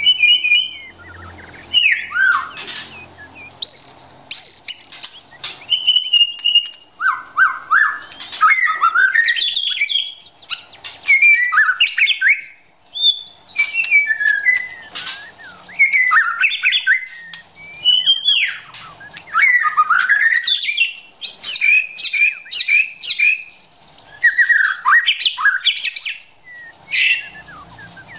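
White-rumped shama singing a long series of varied whistled phrases, rising and falling in pitch, mixed with short clicking notes and brief pauses every second or two.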